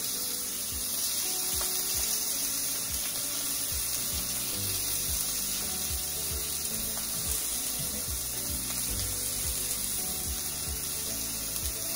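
Steak searing in a hot ridged grill pan: a steady sizzle with irregular crackling and spitting.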